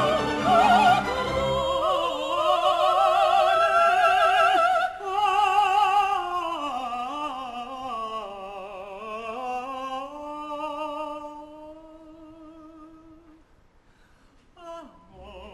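Operatic singing in bel canto style with wide vibrato. After about two seconds the low accompaniment drops away, and the voice line descends and settles on a long held note that fades out a couple of seconds before the end.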